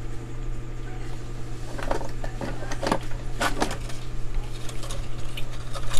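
A few short clicks and knocks from handling a circuit board and its parts, over a steady low hum.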